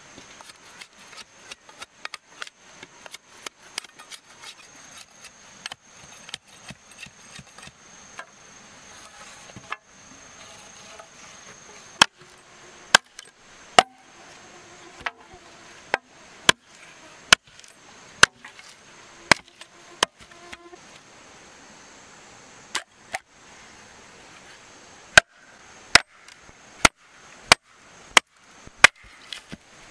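Repeated sharp knocks: light, quick clicking at first, then loud single strikes about one a second, with a short pause before the last run of strikes.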